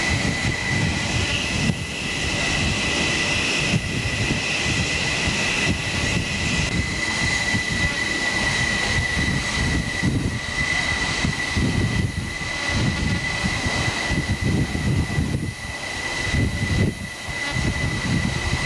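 Jet aircraft engines running on a carrier flight deck: a steady high whine over a loud, uneven rumble. A second, higher whine drops out about six and a half seconds in.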